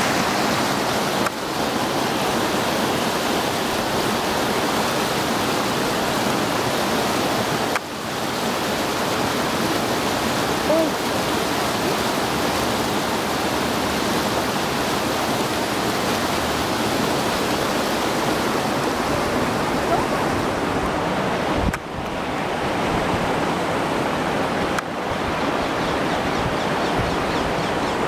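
River water rushing over rocks in shallow rapids: a steady, fairly loud rush that dips briefly a few times.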